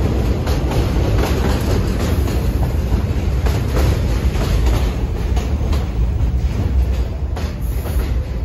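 R46 subway cars rolling past: a steady low rumble with wheels clicking over the rail joints, easing slightly near the end.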